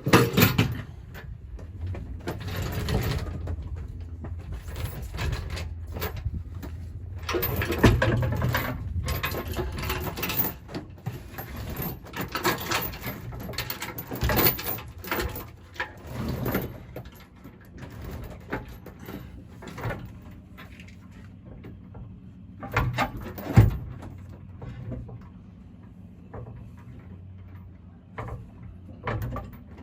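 Irregular knocks, clanks and scrapes of a heavy steel gooseneck hitch adapter being slid and shifted into line against a trailer's pin box, over a low steady hum. The loudest knocks come right at the start, about eight seconds in, and near the middle.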